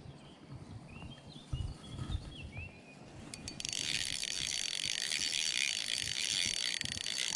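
Spinning reel being cranked to retrieve the lure: a few clicks, then steady gear noise from about three and a half seconds in. Before it, faint bird chirps and a couple of soft knocks from handling the rod.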